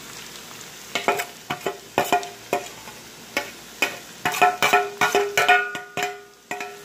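A spoon scraping and clinking against a steel bowl as sliced onion is knocked out of it into a frying pan. There are many sharp clinks and the bowl rings. A low frying sizzle of potatoes in oil runs underneath.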